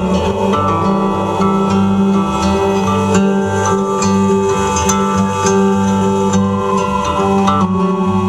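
Instrumental guitar music, plucked and strummed, over a bass line that changes notes steadily.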